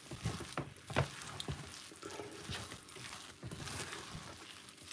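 Thick turn cornmeal with vegetables being stirred and turned in a stainless steel pot: a faint stirring noise with a few light knocks, the loudest about a second in.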